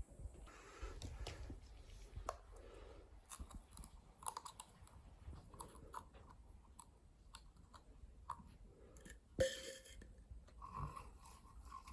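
Faint chewing and crunching with scattered small clicks, and one sharper click about nine seconds in.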